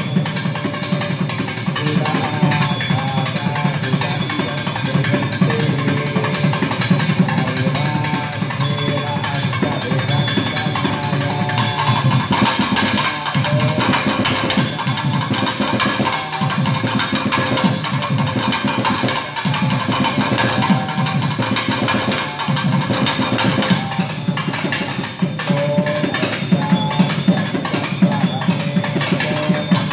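Two thavil drums played together in a fast, unbroken stream of sharp strokes over a deep drum tone.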